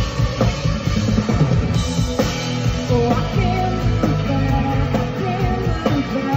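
Live rock band playing: electric guitars and drum kit, with a woman singing into a microphone, heard loud from within the audience.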